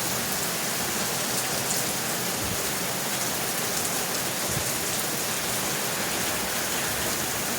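Heavy rain falling steadily: a dense, even hiss of rain on surfaces, with a few individual drops ticking through.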